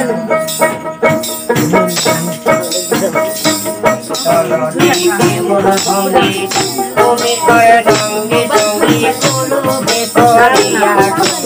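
Bengali folk music passage without singing: a plucked long-necked lute plays the melody over quick, continuous jingling from hand-shaken jingle percussion.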